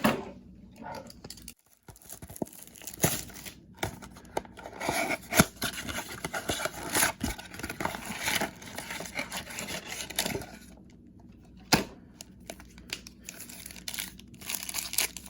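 Wrapping on a Topps baseball card blaster being torn open and crinkled by hand: irregular crackling and rustling with many short sharp clicks, easing off for a moment about two-thirds of the way through.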